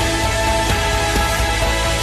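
Background music with sustained tones and a steady low pulse.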